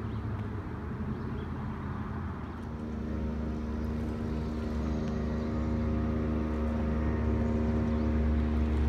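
A passing motorboat's engine drones steadily, coming in about three seconds in and growing gradually louder as it approaches.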